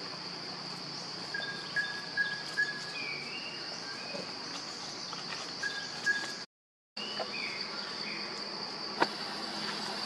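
Steady high-pitched drone of forest insects, with a few short whistled calls over it. The sound cuts out completely for about half a second two-thirds of the way through.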